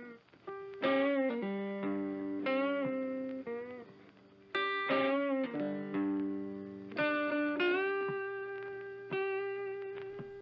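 A solo guitar plays a slow melody of single plucked notes, each left to ring and fade. Some notes waver slightly in pitch, and the last note is held and rings on.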